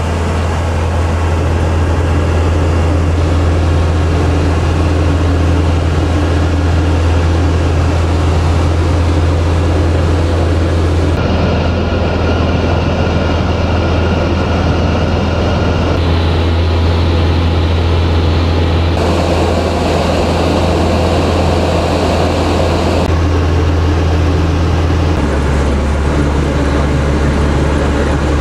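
Robin DR400 light aircraft's piston engine and propeller droning steadily in cruise, heard from inside the cockpit. The tone changes abruptly several times.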